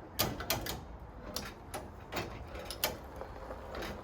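About eight sharp metallic clicks and knocks at uneven intervals as a car body is hoisted off its frame.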